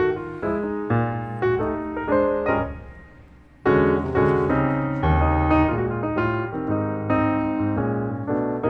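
Background piano music, a run of single notes and chords; it fades away about three seconds in and starts again abruptly half a second later.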